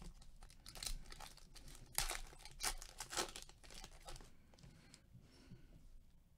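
Trading-card pack wrapper torn open and crinkled by hand, in a series of quick rips and crackles that are loudest about two to three seconds in. Softer rustling of the cards follows near the end.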